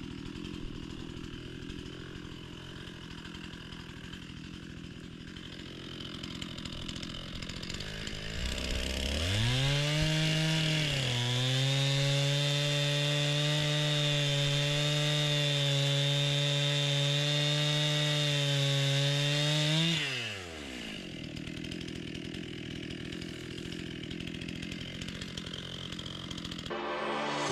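Two-stroke chainsaw idling, then opened up about nine seconds in and held at high revs for about ten seconds before dropping back to idle.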